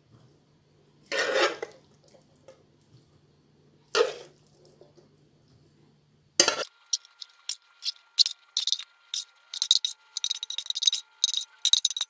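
Serving spoon scraping and clinking against a casserole dish as a mince and vegetable mix is spooned in: two short scrapes, then from about halfway a run of quick, sharp clinks, several a second.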